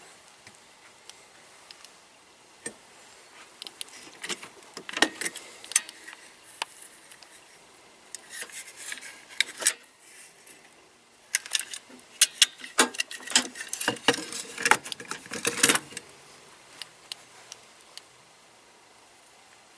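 Small metal parts and hand tools clinking and clattering during engine overhaul work. A few scattered clicks come first, then bursts of jangling, the busiest run in the second half before it quiets down.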